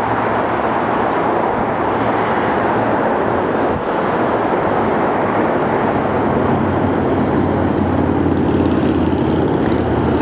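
Sound Transit light rail train on an elevated guideway, a steady rumble with a low hum that grows stronger over the last few seconds as the train draws near.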